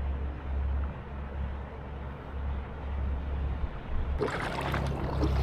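Water sloshing and splashing against an inflatable kayak's hull as it rides small waves, over a steady low rumble. About four seconds in the splashing turns suddenly louder and brighter.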